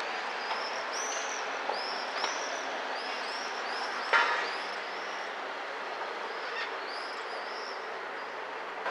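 Birds flying over a town square, giving many short, high-pitched arched calls several times a second, over a steady background hubbub. One sharp clack about four seconds in.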